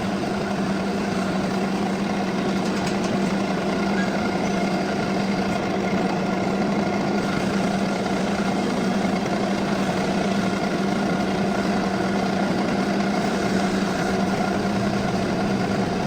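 Metal lathe running steadily: an even machine hum at one constant pitch over a dense grinding noise, with no change in speed.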